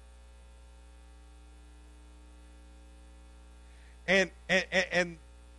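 Steady electrical mains hum, then about four seconds in a man's voice gives four short, loud, wordless vocal bursts in quick succession.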